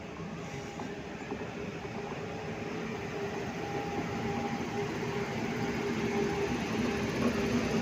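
Indian Railways passenger train running with a steady hum, growing gradually louder.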